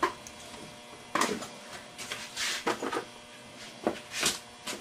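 Handling noises: about half a dozen short knocks and rustles of small parts and packaging being picked up and moved while a no-go pin gauge is fetched.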